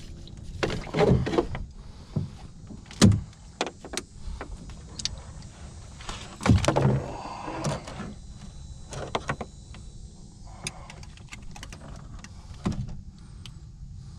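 Clicks, knocks and thumps of a landed jack crevalle being held down and handled on the deck of a small boat, with louder thuds about a second, three seconds and six and a half seconds in.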